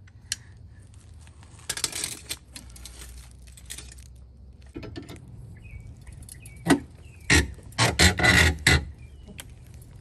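Metal clinking and rattling as a compact scissor jack and its crank handle are handled and set up, in several separate bursts, loudest near the end.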